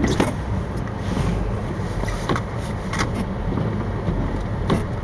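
Small truck driving slowly over snowy, rutted pavement, heard inside the cab: a steady low rumble of engine and tyres with a few sharp knocks as it jolts over the ruts.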